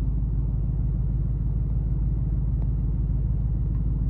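Steady low rumble of a 2008 Mustang GT's 4.6-litre V8 cruising, with road noise, heard inside the cabin while driving.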